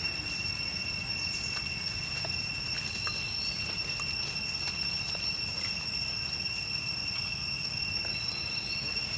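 A steady high-pitched whine held at two fixed pitches over a low rumble, with a few faint clicks.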